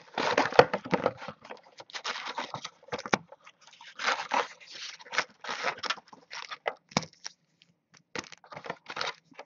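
Foil-wrapped trading-card packs being pulled out of a cardboard hobby box and stacked, making a run of irregular crinkling and scraping rustles with short pauses.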